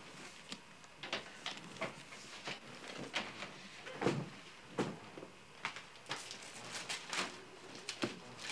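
Gift wrapping paper crinkling and tearing as presents are unwrapped, in quick irregular rustles, the loudest about four seconds in.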